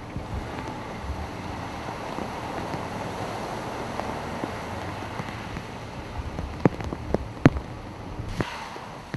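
Ford Explorer SUV ploughing through flood water on a street, its tyres throwing up spray: a steady rush of splashing water that swells through the middle and then eases. Two sharp taps come near the end.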